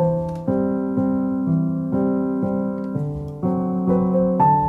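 Background piano music: notes and chords struck every half second or so, each fading before the next.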